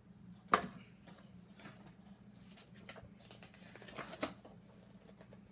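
Paper booklets and packaging being handled: light rustling with small clicks and taps, the sharpest about half a second in and another pair around four seconds.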